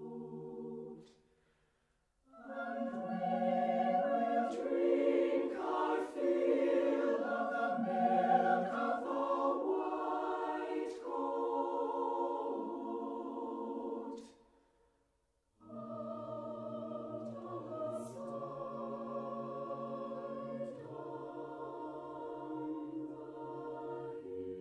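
Mixed chamber choir singing a cappella. A held chord fades out about a second in. After a short pause the choir comes back louder with moving parts, breaks off briefly, then carries on softly with long sustained chords.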